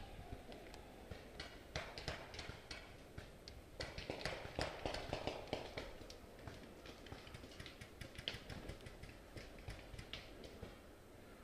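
A paintball player's footsteps on the forest floor with the knocks and taps of their gear as they move between cover: a run of irregular sharp clicks and taps, busiest about halfway through.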